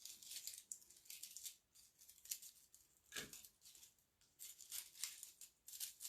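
Faint rustling and crinkling of craft flowers being handled and pulled apart, in short scratchy bursts, with one soft knock about three seconds in.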